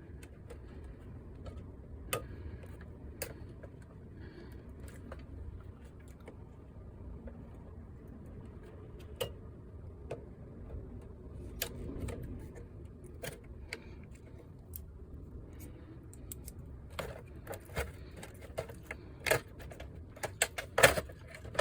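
Scattered small clicks and metallic ticks of a PlayStation 5 being taken apart by hand: screws turned out with a hand screwdriver and small parts handled. The clicks come closer together and louder near the end.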